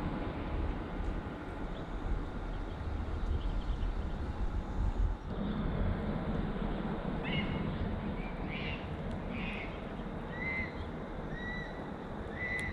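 Steady low rumble of wind on the microphone, with a bird calling repeatedly from about seven seconds in: short high calls, several dipping in pitch.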